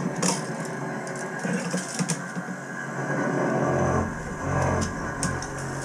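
Light clicks and knocks of a plastic toilet flange and a marker being handled on a laminate floor while the flange's bolt holes are marked, with a low rumble from about three and a half seconds in.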